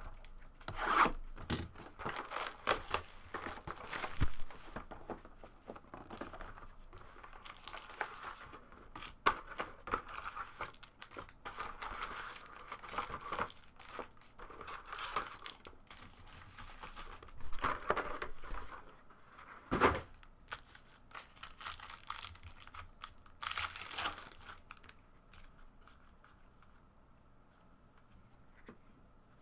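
Shrink wrap, cardboard and foil card-pack wrappers being torn open and crinkled by hand: a sealed hobby box of basketball trading cards being opened. The rips come in irregular bursts and die away over the last few seconds.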